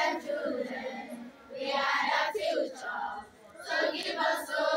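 A large group of schoolchildren singing together in unison, in three short phrases with brief breaks between them.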